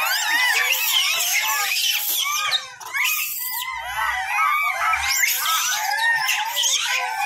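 A troop of rhesus macaques squealing and screaming, with many short, arching high-pitched calls overlapping without a break.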